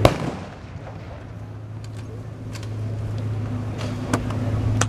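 Tank engines idling with a steady low hum. A sharp bang sounds right at the start and a few shorter cracks come later, blank gunfire.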